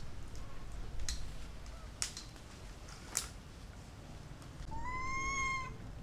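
A monkey gives one drawn-out call of about a second near the end: a short rise, then a steady high note. Three sharp clicks come before it, about a second apart.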